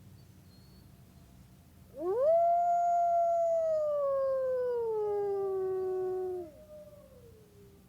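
Wolf howling: one long howl that rises quickly, holds, then slides slowly down in pitch for about four and a half seconds, with a fainter second howl line overlapping near the end and trailing off.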